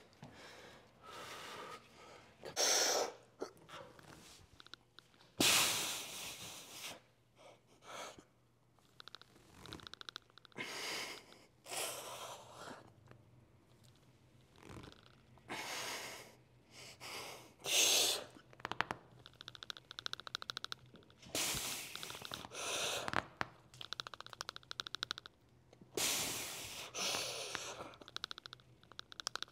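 A man's hard, forceful breaths and exhales as he strains through a heavy set of rows, a burst every second or two.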